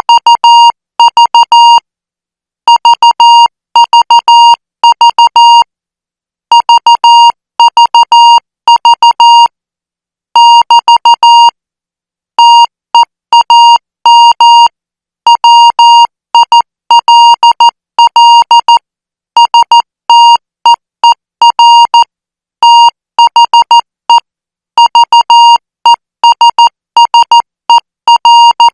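Morse code at 14 words per minute, keyed as a steady high beep in short dits and longer dahs, sent in groups separated by brief pauses.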